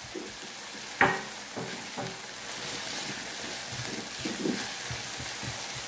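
Chicken thigh pieces and sliced onion sizzling in a nonstick frying pan as they are stir-fried with a silicone spatula, with scattered soft knocks and one sharp knock about a second in.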